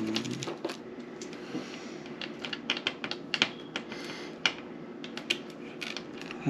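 Irregular light clicks and taps, a few a second at times, over a faint steady hum.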